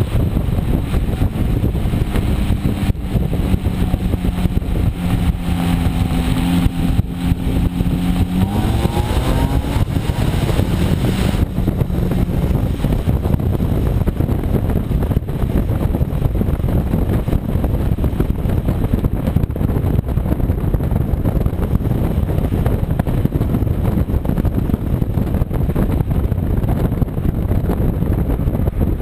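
Hyundai Elantra exhaust with the second catalytic converter swapped for a test pipe on the stock exhaust, heard from outside while the car is driven. The engine note holds steady, rises as the car accelerates about 8 to 10 seconds in, then sinks back under heavy wind and road rumble on the microphone.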